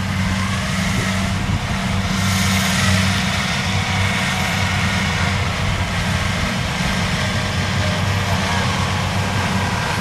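Kubota DC70 combine harvester's diesel engine running steadily with a low, even drone, under a broad rushing noise from the machine at work in the rice.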